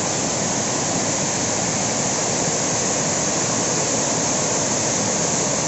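Waterfall crashing onto rock close by: a loud, steady rush of falling water.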